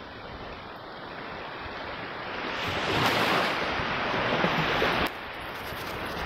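Small waves washing up on a sandy beach, with some wind on the microphone; the surf noise swells louder midway and drops off suddenly about five seconds in.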